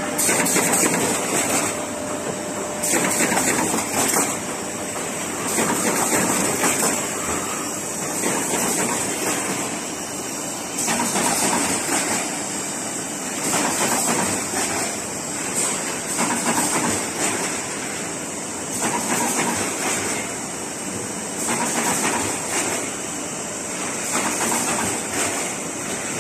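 Automatic partition assembly machine for corrugated cardboard dividers running: continuous mechanical noise with a steady high hiss and louder surges every second or two.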